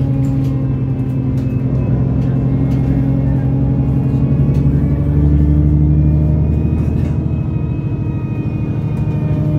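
Otokar Kent C12 city bus's engine and drivetrain running under way, heard from inside the passenger cabin: a steady hum with a deeper rumble that swells for a couple of seconds midway, over light rattles.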